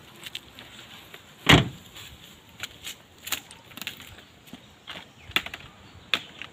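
A car door shut once with a heavy thump about a second and a half in, followed by a string of light clicks and knocks as a plastic carry basket is carried off and set down on the ground.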